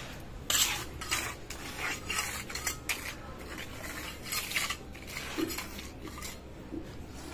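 Small mason's trowel scraping and smoothing freshly poured wet concrete, a run of irregular scraping strokes about two a second that thin out near the end.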